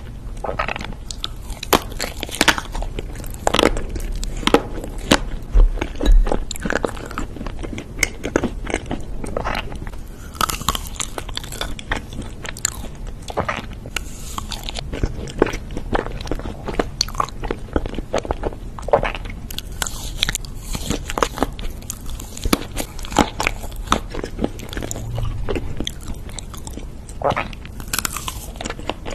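Close-miked biting and chewing of coated red velvet cake bars: irregular small crunches and crackles of the coating breaking, between soft, wet chewing sounds.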